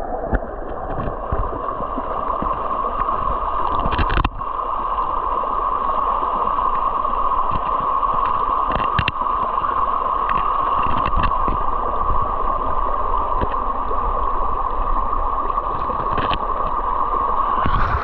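Waterfall water rushing and churning, heard muffled through an underwater camera, with a few short clicks and knocks.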